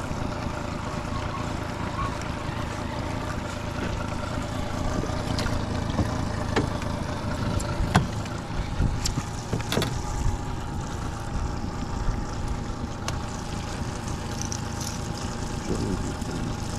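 Honda 30 hp four-stroke outboard running steadily at trolling speed, a low hum with a few steady tones. Scattered sharp clicks and knocks over it as the caught zander and the lure's treble hooks are handled in the aluminium boat.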